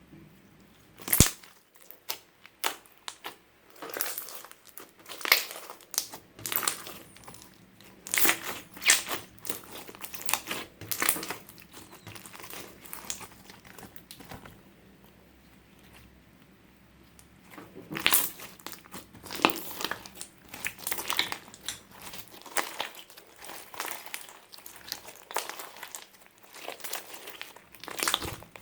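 Hands squeezing and stretching clear slime, giving irregular crackling, sticky pops and clicks. There is a sharp pop about a second in and a quieter stretch midway.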